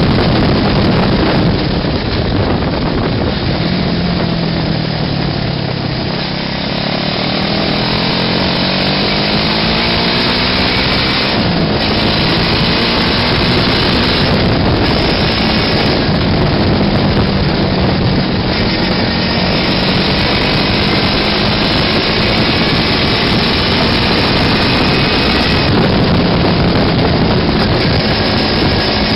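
Small buggy engine running under way, with a steady buzzing note that dips in pitch about five seconds in, then picks up again and holds fairly even while the buggy drives along.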